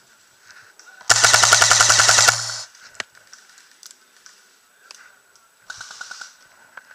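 Classic Army G36C airsoft electric gun firing one full-auto burst of a little over a second, about a second in. The gearbox and piston make rapid, even clacks over a steady motor hum. Near the end comes a second, shorter and quieter full-auto burst of airsoft fire.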